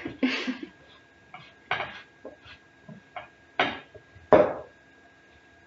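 A spoon scraping and knocking against a glass mixing bowl while stirring a stiff, sticky almond-butter dough: about eight separate scrapes, the loudest about four and a half seconds in.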